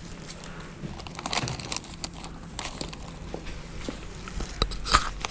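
Irregular rustling and clicking close to the microphone, the handling noise of a handheld camera, with a few sharper knocks near the end.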